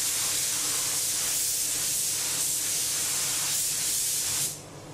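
SATA RP gravity-feed spray gun hissing steadily as it sprays clear coat. The hiss stops about four and a half seconds in.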